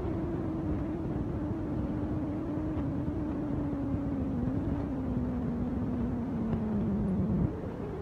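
A small engine running with a steady hum whose pitch slowly sags, then breaks off abruptly near the end.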